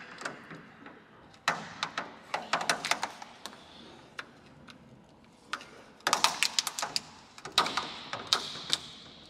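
Hands working at the edge of an ultralight's riveted aluminium panel and its red cover: two flurries of sharp clicks and taps, one about a second and a half in and a louder one about six seconds in.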